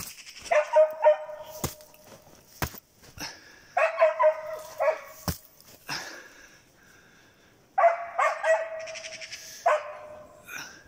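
Hunting dog barking in three bouts of rapid barks, baying at a marten it has treed, with a few sharp clicks between the bouts.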